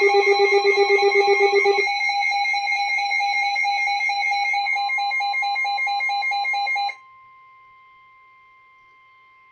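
Emergency Alert System alert tone: a rapidly pulsing electronic alarm tone that jumps to a higher pitch about two seconds in and cuts off suddenly about seven seconds in. A faint steady tone is left behind.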